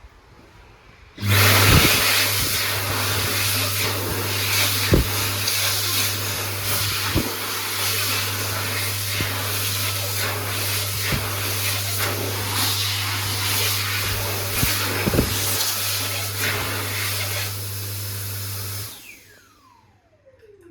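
Dyson Airblade 9kJ (HU03) hand dryer starting suddenly about a second in, blowing loudly and steadily with a low hum under the rush of air. It cuts off near the end, and its motor winds down with a falling whine.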